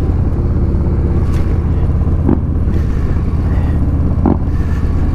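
Harley-Davidson Low Rider ST's Milwaukee-Eight 117 V-twin running steadily while riding along at low speed, a deep, even exhaust rumble.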